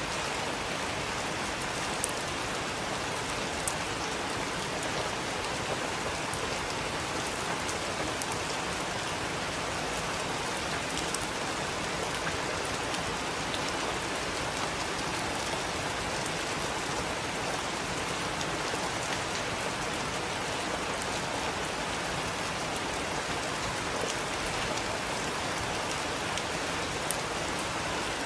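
Heavy rain falling steadily, a dense even hiss with an occasional sharp louder drop striking close by.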